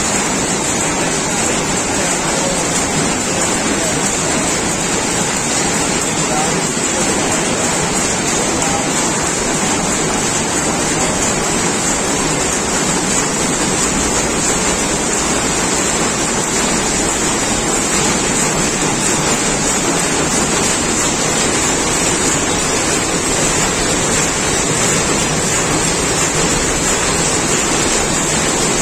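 Rapier weaving looms running together in a weaving shed, a loud, steady mechanical din.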